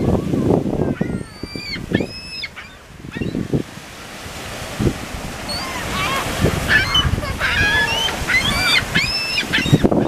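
A flock of gulls calling: repeated arching squeals and yelps, a few about a second or two in, then a busier run of overlapping calls from about six seconds in until near the end. A low rumble of wind and surf runs underneath.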